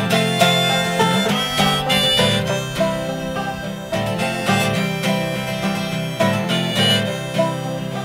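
Acoustic guitar strummed in a steady rhythm and a banjo picked alongside it, with a harmonica playing the melody over them in a folk-bluegrass style.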